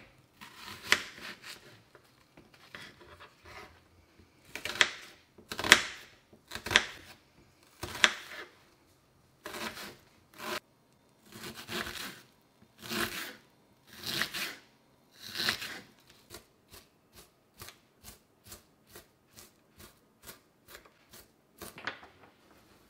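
Kitchen knife cutting a peeled onion on a wooden cutting board: uneven crunching slices through the onion, then from about two-thirds in a quick, even series of short knife taps on the board, about three a second, as it is finely diced.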